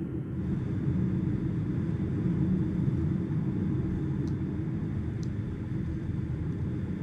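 Steady low road and tyre rumble heard inside the cabin of a Ford Mustang Mach-E electric SUV driving at speed, with no engine sound; two faint ticks around four and five seconds in.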